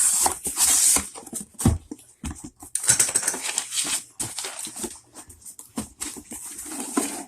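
Packaging being opened and handled by hand to unpack a newly delivered impact wrench: an uneven run of rustles, scrapes and small clicks.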